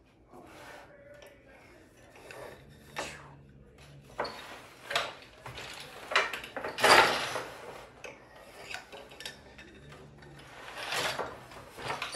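Wooden floor loom being worked: a boat shuttle slides through the warp, the beater is pulled against the cloth with wooden knocks, and the treadles and shafts clunk as the shed changes. The knocks come irregularly, loudest about seven seconds in and again near the end.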